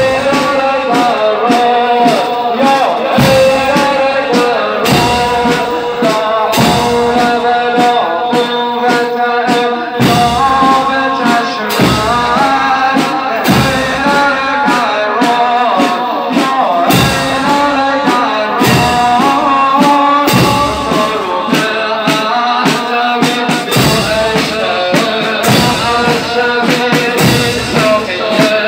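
Male voices chanting a mourning lament over drums that beat a slow, steady rhythm, with a heavy beat about every second and three-quarters and lighter strokes between.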